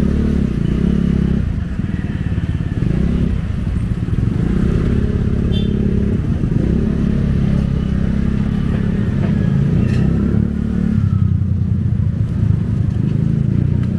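Street traffic dominated by motorcycle engines running close by, their pitch rising and falling as they rev and pass.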